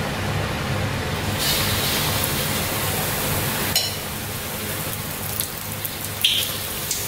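Batter-coated potato vadas sizzling as they deep-fry in hot oil in a metal kadhai, a steady hiss like rain that picks up about a second and a half in, with a few light clicks of a metal spoon near the end.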